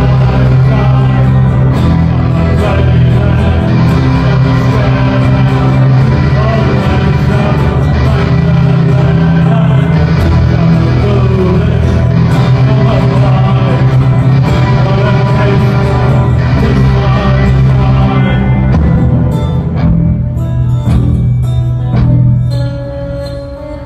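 Live folk-rock band playing the instrumental close of a song: electric guitars, acoustic guitar, drums and violin over a steady low bass note. About nineteen seconds in the full sound breaks up into a few separate drum hits, and the song fades out near the end.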